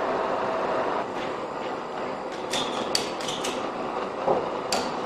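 Propane torch burning with a steady hiss that drops in level about a second in. Several sharp metallic clicks and a dull knock follow as the torch and steel tubing are handled.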